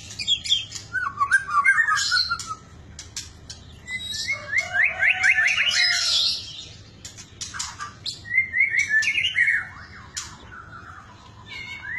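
White-rumped shama singing a varied song in bursts: fast repeated notes, quick trills, whistled glides and sharp clicking notes, with short pauses between phrases and quieter near the end.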